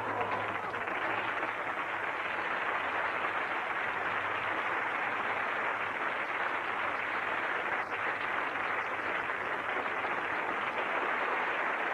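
Steady hiss of even noise, with no speech and no distinct events.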